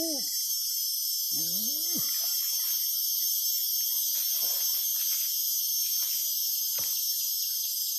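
Steady high-pitched drone of jungle insects, with two short grunting voice sounds in the first two seconds and faint splashing as a hooked baung catfish is reeled in.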